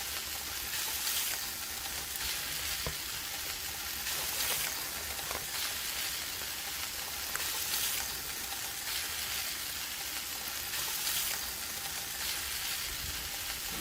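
Food sizzling in a hot pan: a steady frying hiss with faint irregular crackles.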